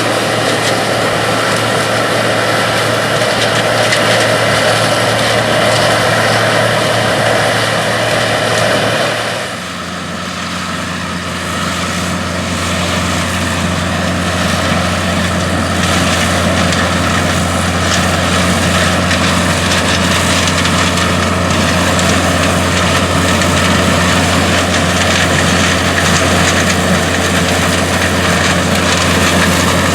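Classic combine harvester running steadily under load, its engine and machinery making a continuous drone. About a third of the way in the sound changes abruptly to a different, lower engine note.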